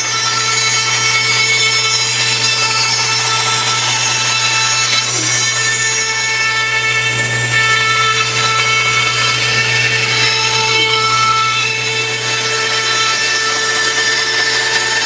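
Bandsaw rough-cutting an edge-grain cedar plank to a marked line: the motor's steady hum under the hiss of the blade cutting through the wood.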